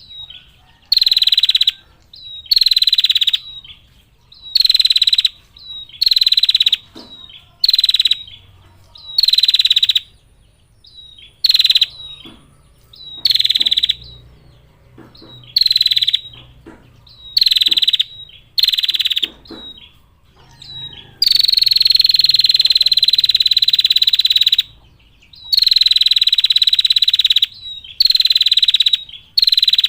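Female prenjak (prinia) giving its rattling trill call ('ngetir'): loud, buzzy, high-pitched trills about a second long, repeated roughly every one and a half seconds, with one long trill of nearly four seconds about two-thirds of the way through.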